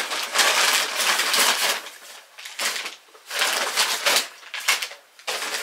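Parcel packaging being unwrapped and crinkled by hand, in several bursts of rustling with short pauses between them.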